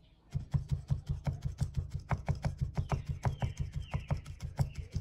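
Felting needle tool stabbing rapidly into loose wool over a cloth-covered foam work pad, compacting the fibres. It is a quick, even run of pokes, each a soft thud with a click, about six or seven a second, starting about half a second in.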